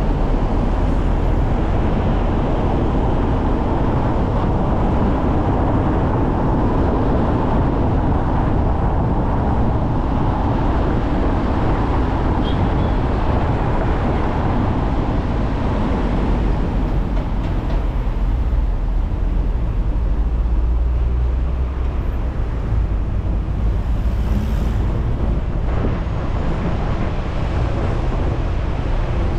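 Steady road noise of a car driving: a continuous tyre and engine rumble, heavier in the first half and easing after about 17 seconds.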